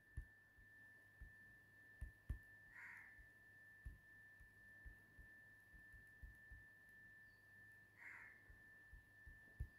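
Near silence: faint room tone with a thin, steady high-pitched whine and a few faint scattered ticks.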